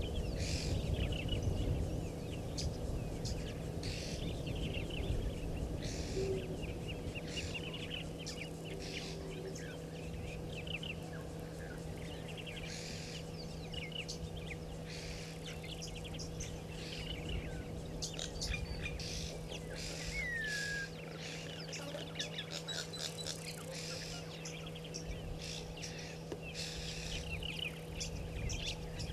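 Wild birds chirping and calling in quick repeated notes, with one falling whistle about twenty seconds in, over a steady low hum and low rumbling noise.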